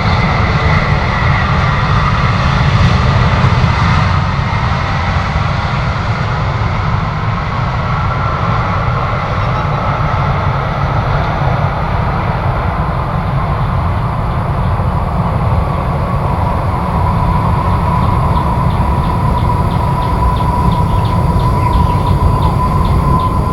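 Jet engines of an arriving Emirates airliner: a steady, heavy rumble under an engine whine that slowly falls in pitch.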